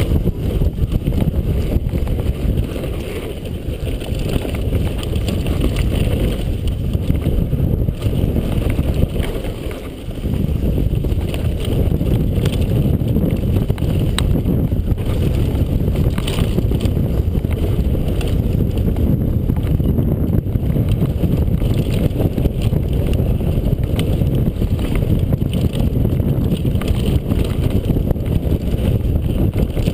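Wind buffeting a helmet-mounted camera's microphone as a mountain bike descends, with the tyres and bike rattling over a dry, rocky dirt trail. The noise eases briefly about three seconds in and again around ten seconds.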